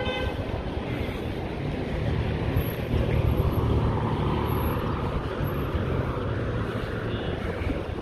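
City street traffic noise beside a multi-lane road, with a low rumble that swells about two seconds in and fades again by about five seconds.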